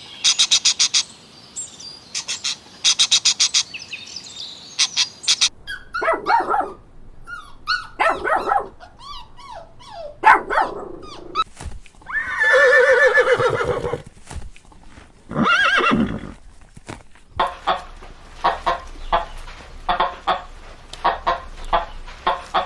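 A string of short animal calls, one after another: quick runs of clicking chirps and several gliding, pitched cries, with the loudest and longest call about twelve seconds in.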